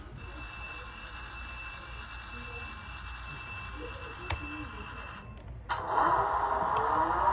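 A steady high-pitched whine with a single click about four seconds in. About six seconds in, a louder engine-like whir starts with rising pitch, the sound of a model diesel locomotive powering up.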